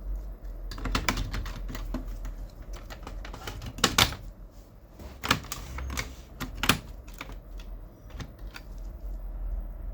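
Irregular clicks and knocks of Kyocera P3145dn laser printer parts being handled and fitted back together during reassembly, the loudest about four seconds in.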